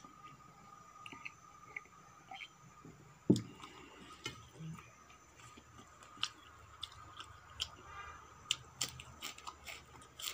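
Close-miked eating sounds: fingers squishing and scraping rice on a steel plate, a raw leafy green being folded around it, and chewing, as scattered small clicks and crackles. A single dull thump comes about a third of the way in.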